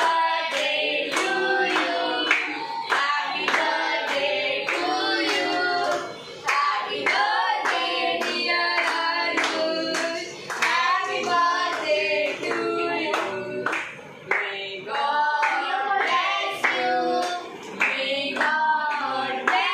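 A group of voices singing together at a birthday cake-cutting, with hand clapping along.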